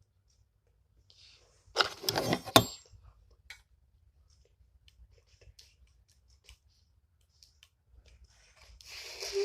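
Saxophone parts being handled during assembly: a brief clatter with a sharp click about two seconds in, then scattered small clicks, and a breathy rush of air near the end.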